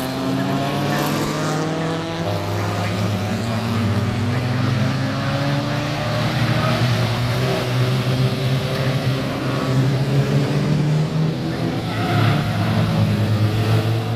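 Porsche race cars going by at speed on the circuit, several engine notes overlapping and gliding up and down in pitch as the cars pass and change gear.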